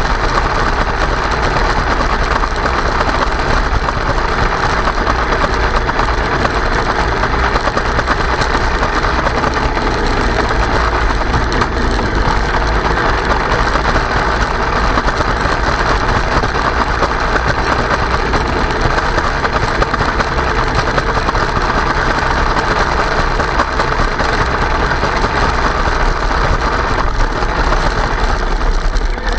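Kyosho Blizzard radio-controlled snowcat running steadily, its electric motor and tracks making a continuous mechanical noise with clonking and rattling that might be ice chunks in the running gear or a fault needing a look.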